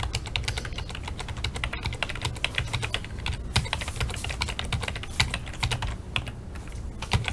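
Rapid typing on a computer keyboard, a dense run of key clicks, while the card numbers 1 through 20 are entered into a list randomizer. A steady low hum runs underneath.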